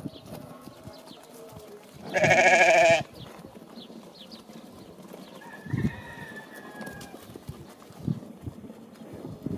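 A sheep bleats once, loud and wavering, for about a second, starting about two seconds in. A few soft low thumps follow.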